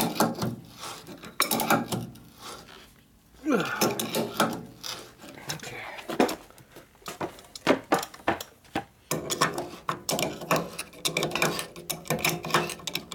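Adjustable wrench turning a lathe's levelling screw at the foot to take the twist out of the bed: irregular metal clicks and clanks of the wrench on the screw, with a brief falling squeak about three and a half seconds in.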